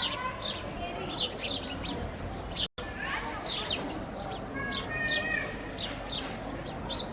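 Sparrows chirping in many quick, short notes, overlapping into busy chatter, with a split-second break about a third of the way through.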